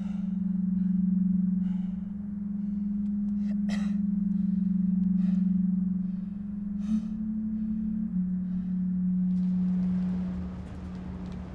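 A sustained low drone, one steady tone, steps slightly up in pitch about seven seconds in and drops a little lower about a second later, with faint scattered clicks above it.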